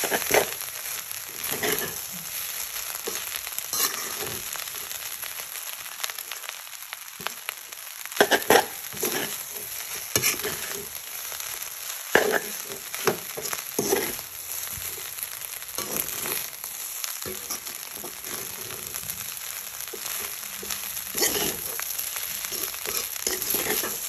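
Spinach rice sizzling in a stainless steel pan, stirred and tossed with a metal spoon that scrapes and clinks against the pan at irregular moments over a steady frying hiss. The rice is being mixed over medium heat until the spinach leaves are cooked through.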